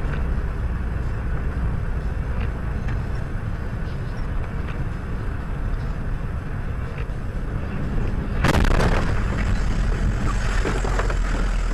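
Steady rumble of a vehicle driving on a snow-covered road, heard through a dashcam. About eight and a half seconds in, a sudden loud rushing noise cuts in and stays louder to the end.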